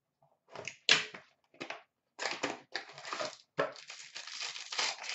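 Plastic wrap and cardboard of a trading card box crinkling and crackling in irregular bursts as it is cut open with a blade and pulled apart. The sharpest crackle comes about a second in, with denser crinkling from about two seconds on.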